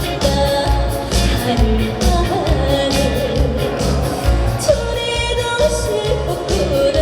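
Korean trot song: a backing track with a steady bass beat under a wavering sung melody line.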